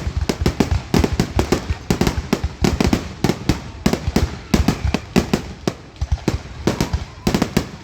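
Fireworks going off in a dense, continuous barrage of loud bangs, several a second and overlapping, as in a grand finale.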